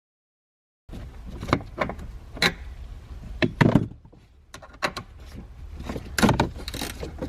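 Irregular clicks and knocks of a hand tool working on the Honda Fit's tail light assembly mounting bolts and its plastic housing. The sound cuts in about a second in.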